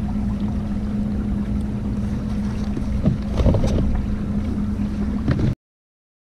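Newport Vessels 55 lb thrust electric trolling motor running at full speed on PWM control, a steady hum under wind noise on the microphone and water moving past the kayak. The sound cuts off abruptly to silence near the end.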